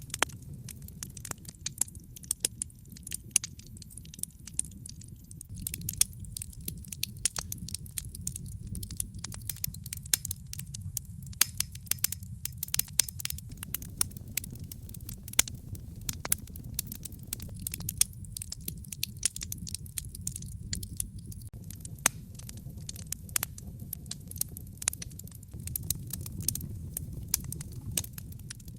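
Wood fire crackling in a fireplace: frequent sharp pops and snaps over a steady low rumble of the burning fire.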